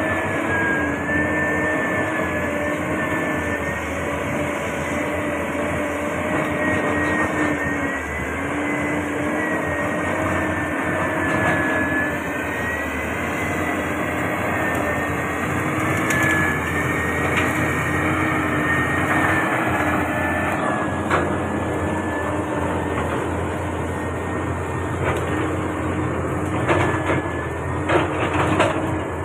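Caterpillar 320D hydraulic excavator's six-cylinder diesel running steadily under working load, with a whine that rises and falls slowly as the hydraulics work the boom. Near the end, a few sharp cracks as the bucket breaks through brush.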